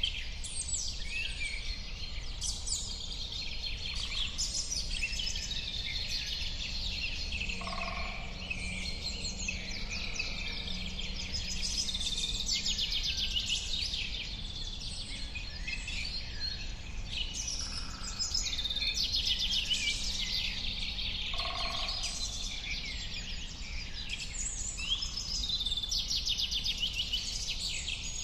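Many birds singing at once, a dense chorus of quick chirps and trills, over a steady low rumble. Twice a short lower-pitched call stands out.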